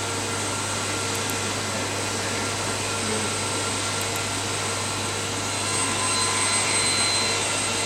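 Steady mechanical whirring hum with a faint high whine, swelling a little about six seconds in.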